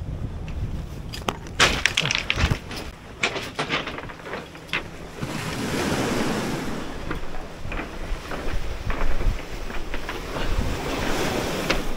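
Footsteps crunching and clacking over round beach pebbles, with small waves washing up on the cobble shore, one swelling wash about halfway through. Wind buffets the microphone with a low rumble.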